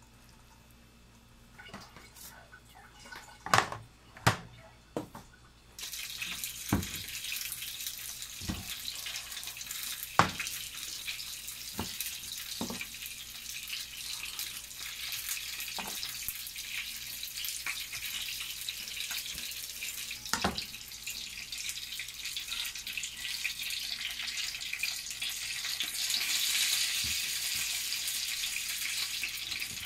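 Steady hiss of running water that starts suddenly about six seconds in and grows louder near the end. Scattered clicks and knocks sit over it, the two loudest a few seconds before the hiss begins.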